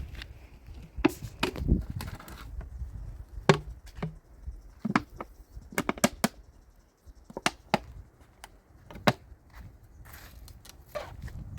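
Irregular sharp knocks and clicks, about a dozen, spaced unevenly, some much louder than others, like chopping or striking hard objects.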